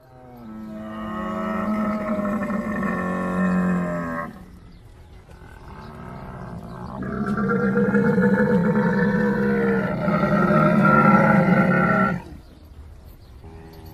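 Camel calling: two long, loud, deep groaning calls, the first about four seconds long, the second from about seven to twelve seconds in, with a quieter rumbling stretch between them and a fainter call starting near the end.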